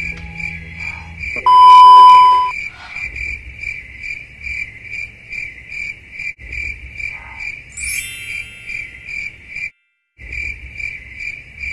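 Chirping of crickets, a high chirp repeating evenly about three times a second and cutting out abruptly for a moment near the end, added as a sound effect. About one and a half seconds in, a loud steady beep sounds for about a second, and about eight seconds in a brief rising sparkle sounds.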